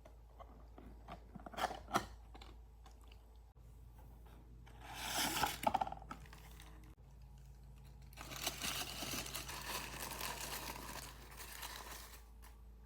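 Blind-box packaging being torn open and crinkled by hand: a few sharp clicks, a short tearing burst, then several seconds of crinkling.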